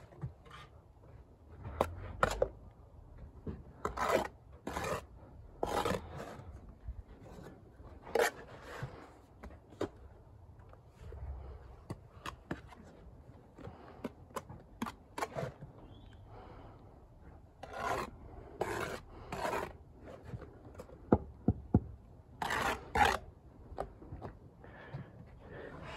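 Brick trowel scraping and spreading sand-and-cement mortar in a series of separate strokes, with short sharp taps between them.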